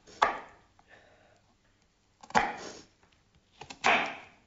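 Onions being cut on a wooden cutting board: three short, crisp strokes about a second and a half apart, each fading quickly.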